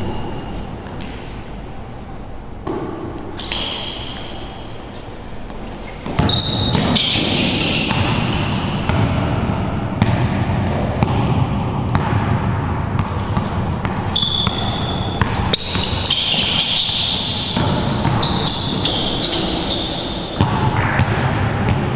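A basketball dribbled repeatedly on a hard indoor court floor, with short high squeaks of sneakers on the floor at several points as the players move.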